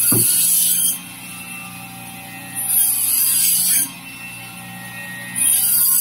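Band saw running with a steady motor hum, its blade rasping loudly through frost-covered fish three times, each cut lasting about a second, roughly every two and a half seconds.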